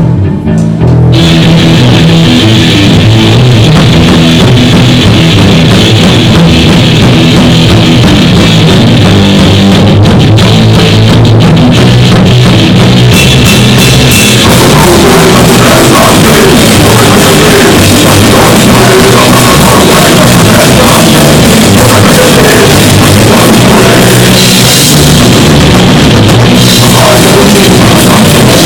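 Live rock band playing a loud, heavy song with drum kit and guitars. The full band comes in about a second in and plays on without a break.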